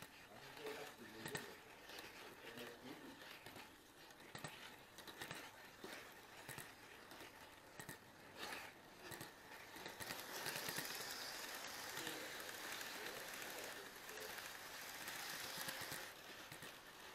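HO-scale model train running on its track, picked up on board: a faint running noise with scattered short clicks as the wheels cross rail joints. From about ten seconds in, a louder steady rushing as a model container freight train passes close alongside.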